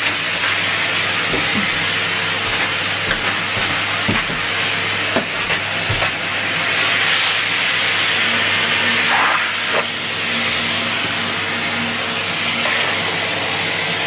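Numatic Hetty HET 160-11 bagged cylinder vacuum cleaner running with a steady airflow hiss, and a few light knocks as attachments are handled on the wand. From about eight seconds in, a low hum joins and the hiss brightens for a few seconds, as the airflow at the nozzle changes.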